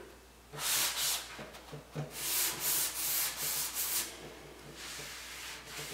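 Damp sanding block rubbed back and forth along the edges of a chalk-painted wooden cabinet door, wearing the paint back to show the wood beneath. It makes a scratchy hiss: one stroke about half a second in, a quick run of about five strokes between two and four seconds in, then fainter strokes.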